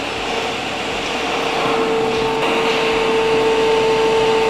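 Vortex 10P coolant mist collector's fan motor running, a steady rush of air with a steady hum that grows a little stronger about halfway through. The filter outlet is partly blocked by a sheet of cardboard to simulate a clogged filter.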